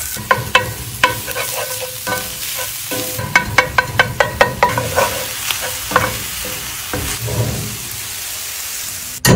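Ground meat frying and sizzling in a cast iron skillet while a metal spatula chops and stirs it, striking the pan in sharp ringing clacks, with a quick run of about eight strikes in the middle.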